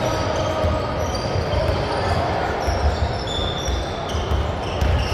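Basketball being dribbled on a hardwood gym floor, a run of repeated low bounces.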